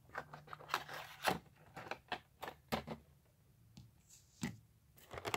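Hinged clear-plastic clamshell blister case being handled: a string of irregular small clicks and short rubs of stiff plastic.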